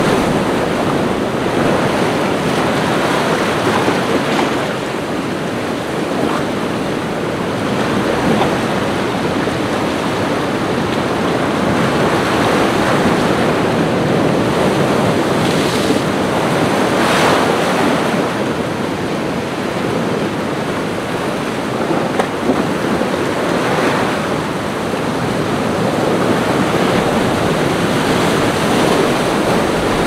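Ocean waves breaking and washing ashore in a continuous surf that swells and eases slowly, with a couple of sharper crashes about halfway through.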